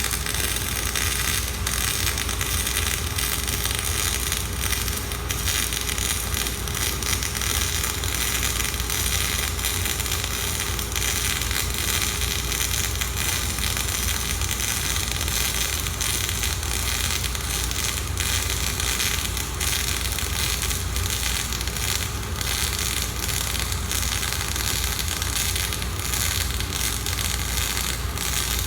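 MIG welding arc burning with flux-core wire under shielding gas, making a steady crackling sizzle through one long continuous bead.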